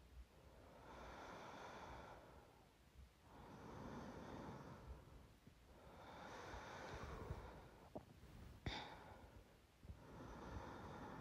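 Slow, soft breathing of a person asleep, about one breath every three seconds. A sharp click sounds once, a little after eight and a half seconds in.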